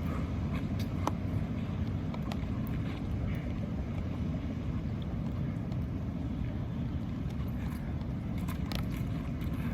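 Steady low outdoor rumble with a few faint ticks and taps.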